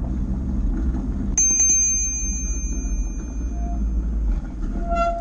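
Bicycle brakes on a Surly Big Fat Dummy cargo fat bike squealing: a high-pitched squeal cuts in about a second and a half in, holds for nearly three seconds, then fades, with a shorter, lower squeal near the end. Underneath is a steady low rumble of the ride.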